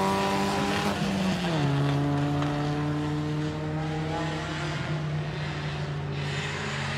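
Honda Civic EG hatchback race car's B16B four-cylinder engine running at high revs on the circuit. Its note drops in pitch about a second and a half in, then holds steady and slowly climbs again.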